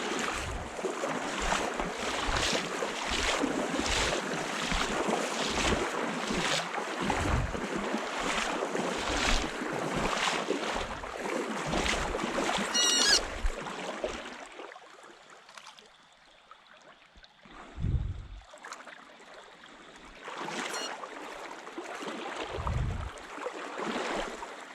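Steady footsteps at a walking pace, a step a bit faster than once a second, for about fourteen seconds; they then stop, followed by two isolated soft thumps.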